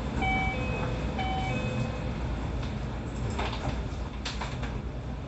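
Keio 5000 series commuter train's door chime sounding twice, then the sliding doors shutting with a few thuds a few seconds in, over the steady low hum of the stopped train.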